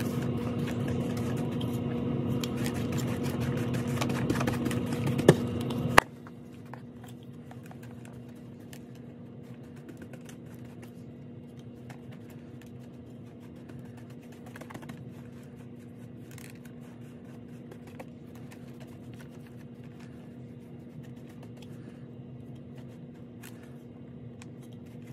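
Wide paintbrush sweeping damp worm castings and coconut coir across the bottom of a plastic tub: repeated soft scratchy brush strokes, louder for about the first six seconds and then fainter after a sharp click, over a steady low hum.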